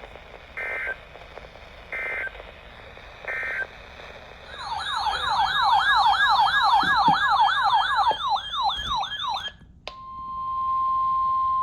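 Emergency Alert System data tones: three short buzzy digital bursts about a second and a half apart, ending one alert. Then a fast, loud warbling siren-like alarm tone rises and falls about three times a second for some five seconds. Near the end a steady single-pitch NOAA Weather Radio alert tone starts, announcing the next warning.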